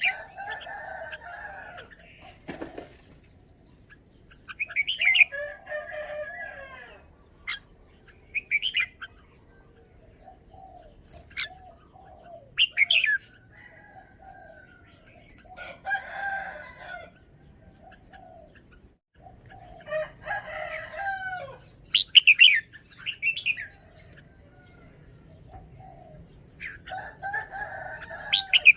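Red-whiskered bulbul singing: short, bright warbled phrases repeated every few seconds, with pauses between them.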